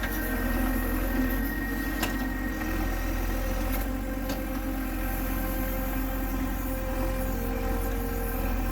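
Heavy earth-moving machine's diesel engine running steadily, with a couple of short clicks about two and four seconds in.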